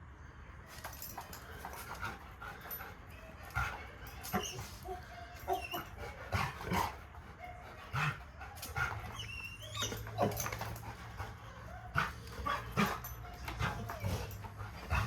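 A Labrador retriever whining and whimpering in excitement, with short pitched cries that bend up and down, among scattered knocks and clicks.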